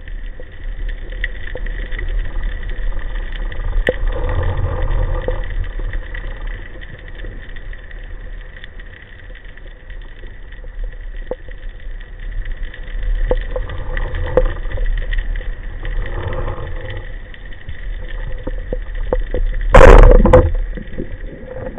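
Underwater recording from a band-powered speargun: low water rumble with faint clicks and a faint steady whine, then just under twenty seconds in the speargun fires with one loud, sharp crack.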